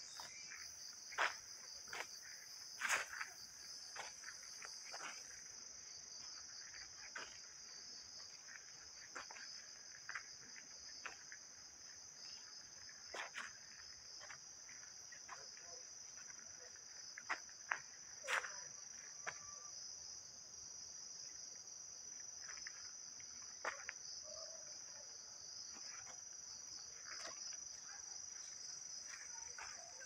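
A steady, high-pitched insect chorus trilling without a break, with irregular crunching footsteps on a dry, leaf-covered dirt path; the sharpest steps come about a second in, around three seconds, and in a cluster a little past halfway.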